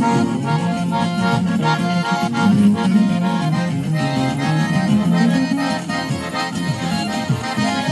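Garmon (Russian button accordion) playing an instrumental passage of a Russian chanson: a melody of held notes over a moving bass line and steady chord strokes.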